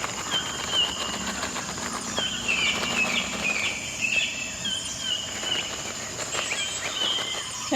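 Homemade shaker filled with dry rice and beans rattling as it is shaken, over a steady background of insect and bird-like chirping.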